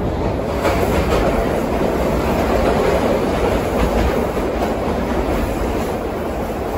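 Vintage R9 New York City subway car running on the rails, heard from inside the car: a steady rumble of wheels and running gear with scattered clicks over the rail joints.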